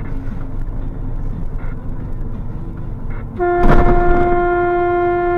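Driving noise from inside a car, then a long, steady car-horn blast starting about three and a half seconds in, with a short rush of noise as it begins.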